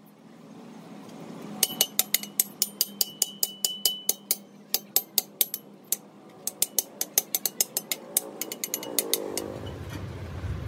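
A hand hammer striking a steel tube section from a truck axle housing in rapid blows, several a second in three runs, each blow leaving a metallic ring. The blows stop near the end and a low steady rumble takes over.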